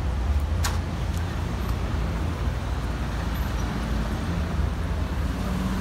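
City street traffic: cars driving through an intersection, a steady low rumble of engines and tyres. Two short sharp clicks come about half a second and a second in.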